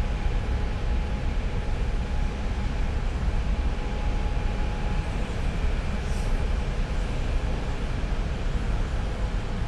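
Oil refinery plant noise recorded close up: a steady, dense low rumble and hiss of machinery, with a faint steady hum running through it.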